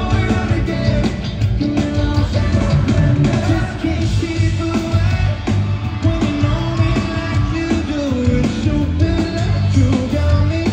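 Live rock band playing full out, with a lead vocalist singing into a handheld microphone over drums, bass and electric guitars, heard from the seats of an arena.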